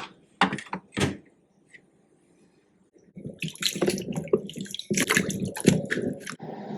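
Three sharp knocks, then water running from a tap into a sink and splashing over items for about three seconds before cutting off.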